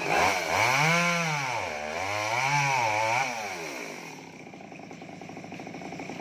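Two-stroke gasoline chainsaw revving up and back down twice as it cuts into the crown of a felled coconut palm, then dropping to a steady idle about four seconds in.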